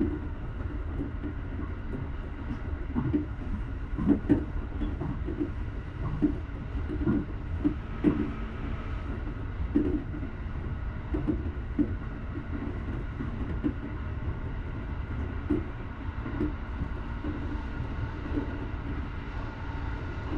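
Electric train running along the track, heard from inside the cab: a steady low rumble with irregular knocks and clunks from the running gear, thickest in the first half.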